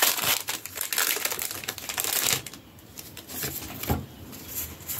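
Foil wrapper of a Pokémon TCG booster pack crinkling as it is handled and opened: loud, dense crinkling for about two seconds, then quieter rustling with a few light taps.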